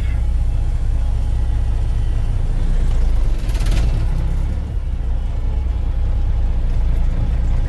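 Detroit Diesel Series 60 12.7-litre diesel engine of a 1989 Kenworth W900 dump truck running steadily, heard from inside the cab as the truck moves slowly. There is a short hiss about three and a half seconds in.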